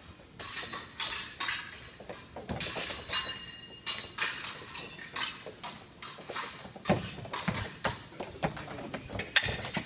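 Fencing bout: a rapid string of sharp footwork stamps and scuffs on the floor, mixed with metal blades clinking and clashing, some hits leaving a brief high ring.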